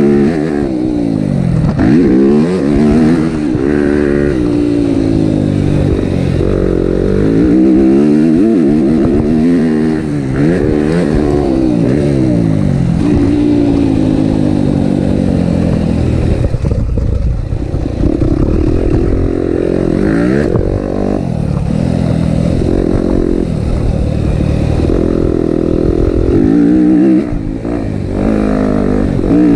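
Yamaha motocross bike's engine revving up and dropping back again and again as the rider accelerates, shifts and slows around the dirt track.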